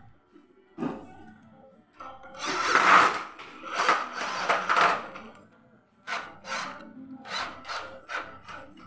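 Cordless drill driving screws through a metal hinge into an aluminium door frame, in several loud short bursts. Near the end comes a quicker run of short pulses, about three a second.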